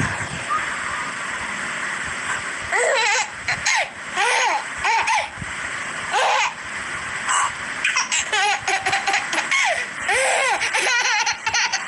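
A baby laughing in repeated bursts of giggles, starting about three seconds in and coming more often toward the end.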